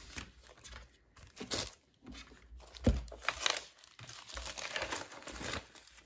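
Clear plastic inner sleeve of a vinyl LP crinkling and rustling in irregular bursts as the record is handled in and out of it, with one sharp tap about three seconds in.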